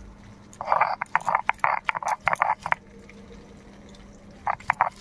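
A frog croaking in rapid pulses, about five or six a second, in a bout lasting about two seconds. A second bout starts near the end.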